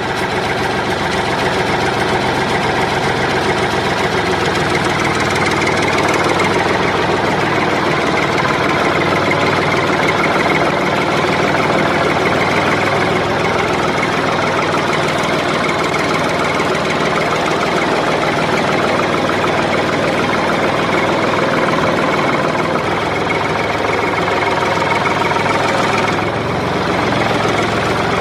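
An engine running steadily at idle, with a knocking note in it, dipping briefly near the end.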